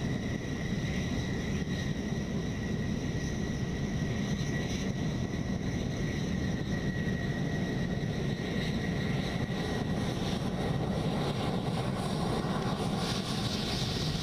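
F-16 fighter jet taxiing, its jet engine running steadily at low power with a high whine held on one pitch over a deep rushing noise; a brighter hiss swells near the end.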